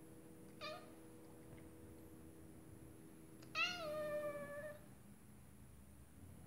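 Scottish Fold cat meowing twice: a brief meow about half a second in, then a longer one a little past halfway that rises, falls and then holds its pitch.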